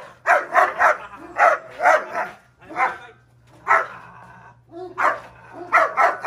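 A large black-and-tan dog barking on a leash in protection training: about ten loud barks in quick runs of two or three, with short pauses between the runs.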